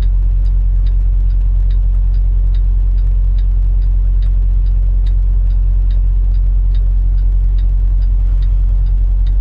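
Semi truck's diesel engine idling, heard from inside the cab as a steady low rumble. A light, regular ticking sounds about two or three times a second over it.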